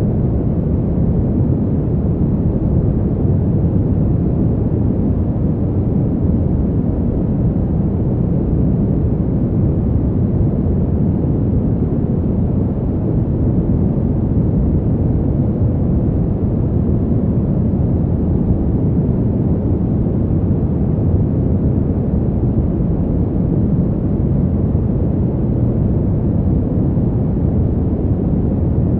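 Fan heater's blower running, a steady low rushing of air with no tone, rhythm or change.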